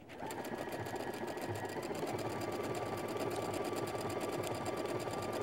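Domestic sewing machine starting up and running steadily, sewing a decorative blanket stitch around a fabric appliqué through an open-toe foot, with a fast, even ticking of needle strokes.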